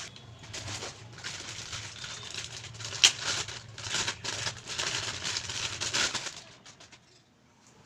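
Rustling and clicking handling noises over a low steady hum, with one sharp click about three seconds in; it dies down to near quiet about a second before the end.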